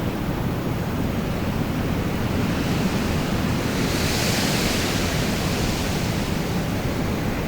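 Storm wind blowing steadily with a deep rumble, swelling into a higher hissing gust about halfway through and then easing back.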